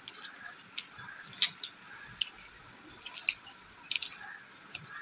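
Wheat-flour dough being kneaded by hand in a steel plate: irregular wet, sticky squishes and clicks as the palm presses and pulls the dough.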